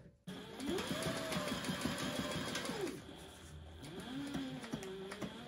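Sailrite Fabricator industrial sewing machine stitching along the edges of a sailcloth wallet: the motor whines up to speed with rapid needle strokes, slows and stops about three seconds in, then runs again more slowly near the end.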